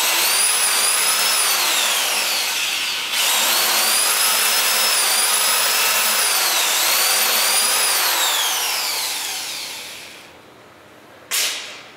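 Corded electric drill driving a 2½-inch self-drilling screw into galvanized C-section steel: a loud motor whine over a grinding noise. The whine's pitch sags and recovers as the bit bites, eases off briefly about three seconds in, and winds down near ten seconds. A short burst of sound follows near the end.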